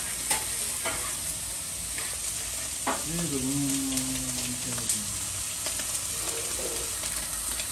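Yak chili dry frying in a pan: a steady hissing sizzle, with a few sharp clicks of a cooking utensil stirring it.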